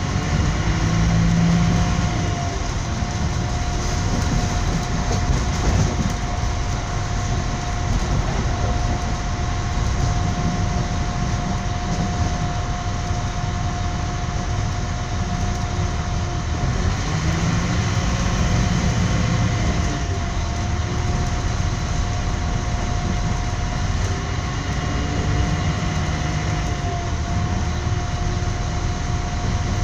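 Train running, heard from inside the carriage: a steady rumble with a constant whining tone above it.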